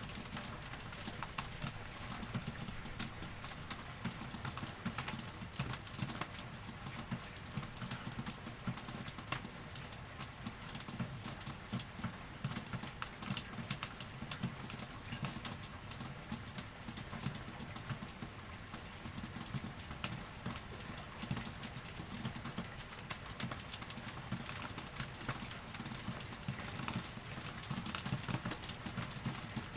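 Steady rain, with a dense, irregular patter of close drops tapping on hard surfaces over a soft hiss.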